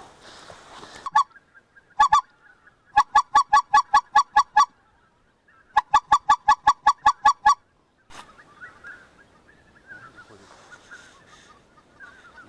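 Goose honks in quick, evenly spaced runs on one unchanging pitch: a single honk, a pair, then two runs of about nine or ten honks at about six a second, loud and close.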